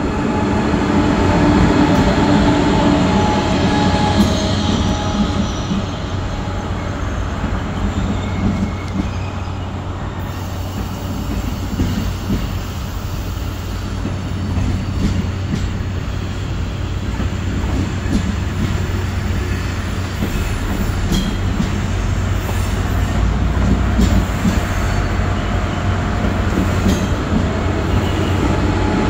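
A KTX-Sancheon high-speed train passes close by, pulling into a station, with a continuous rumble of carriages and wheels on the rails over a steady low hum. A whining tone sounds in the first few seconds and again in the last few.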